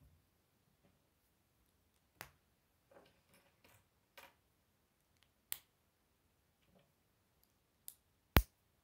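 Plastic K'Nex rods and connectors being pressed together by hand: four sharp clicks as parts snap into place, the loudest near the end, with quieter handling of the pieces in between.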